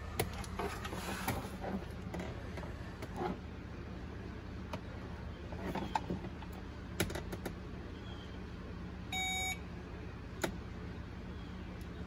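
Handheld circuit tester probe giving one short electronic beep, about half a second long, roughly nine seconds in, amid a few light clicks and taps of wires being handled and a steady low hum.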